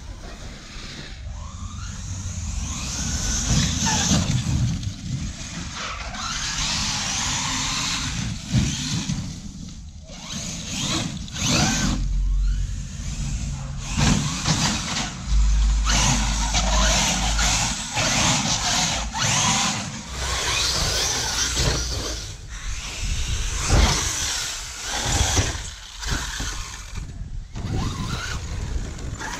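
Radio-controlled monster truck driving and jumping: its motor whines up and down with the throttle, the tyres scrub over grass and concrete, and a few sharp knocks come from landings and hits.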